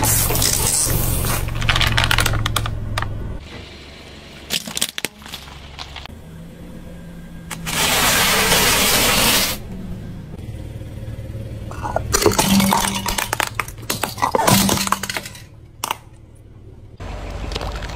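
A car tire rolling slowly over objects and crushing them in a run of separate clips. First a plastic drink bottle crackles and pops under the tread, then about eight seconds in a heap of puffed crackers crunches in one dense burst, followed by more scattered cracks and crunches. A low engine hum runs underneath.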